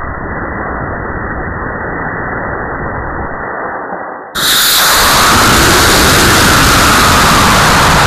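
Model rocket motor firing at liftoff, a steady dull rushing hiss. About four seconds in it cuts abruptly to a much louder rushing roar with a high whine, heard from a camera riding on the rocket in flight.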